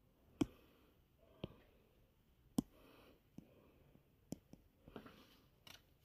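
A stylus tapping on a tablet screen: about seven separate light clicks spread irregularly over a few seconds, each a single sharp tap, as labels are written and a pen colour is picked.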